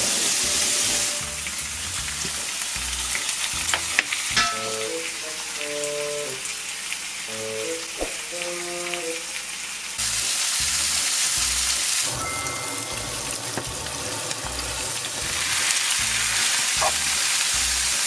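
Sliced pork belly sizzling and frying in a non-stick pan, the sizzle swelling and dropping between louder and quieter stretches. Metal tongs click against the pan a few times as the slices are turned. Background music with a steady beat plays underneath.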